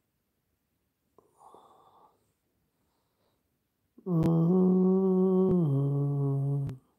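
A man humming two long, held notes, the second lower than the first, starting about four seconds in, with a light click as the pitch steps down.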